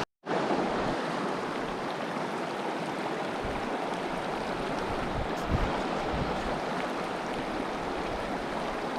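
Mountain creek water rushing steadily over its bed, running muddy after a night of heavy rain. There is a momentary dropout right at the start and one faint knock midway.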